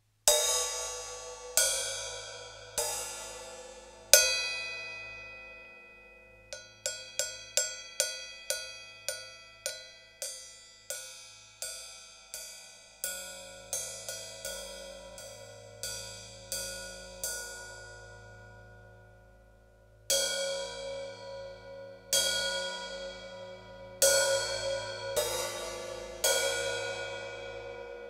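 Hi-hat cymbal struck again and again, each hit ringing out with a long metallic decay. A few spaced hits come first, then a quicker run of about two hits a second, then slower hits, a pause, and a last group of hits.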